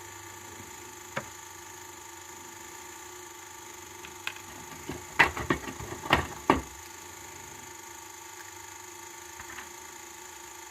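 A sharp click about a second in, then a quick cluster of clicks and rattles of small hard parts between about four and six and a half seconds in, over a faint steady hum: the handling of a rotary tool while its small cutting wheel is being swapped, with the tool itself not running.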